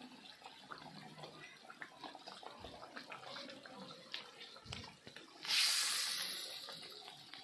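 Masala gravy for a rohu fish curry simmering at the boil in an iron kadhai over a wood-fired mud stove, with many small bubbling pops. About five and a half seconds in, a sudden loud hiss starts and fades away over the next two seconds.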